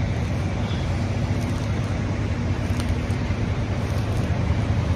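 Steady city street traffic noise: the low, even sound of passing cars and engines.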